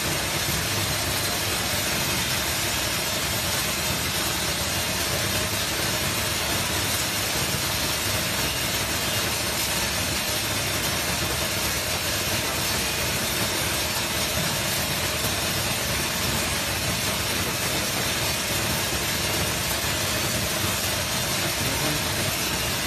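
Optical colour sorter running while sorting gorgon nuts (fox nuts): a steady, dense hiss of the machine and the seeds pouring through its chutes into plastic crates.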